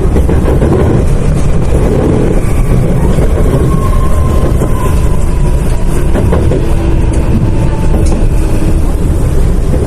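Series 7500 electric multiple unit's traction motors growling under a steady, heavy rumble. A faint whine slowly falls in pitch through the middle.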